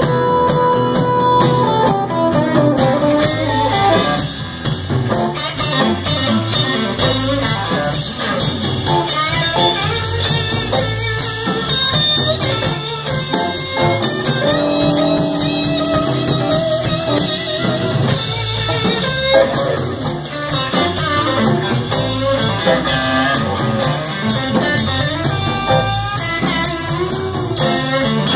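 Live electric blues band playing an instrumental passage without vocals: electric guitars, electric bass and drum kit.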